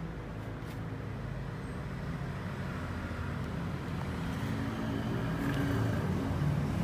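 Yamaha Xabre's single-cylinder 150 cc engine idling steadily through a fitted first-generation Suzuki Satria muffler, getting gradually louder toward the end.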